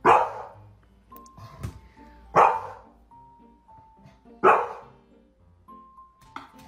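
A large dog barks three times, about two seconds apart, over light background music of plain sustained notes.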